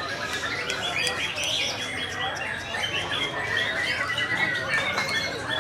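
Dense chorus of caged contest songbirds, including a white-rumped shama, singing at once in many overlapping chirps, trills and short whistled phrases.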